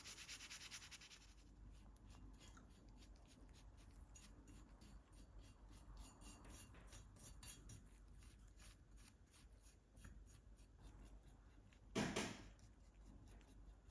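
Faint scraping and rubbing from hand work on a small model car, with one louder, brief scrape near the end.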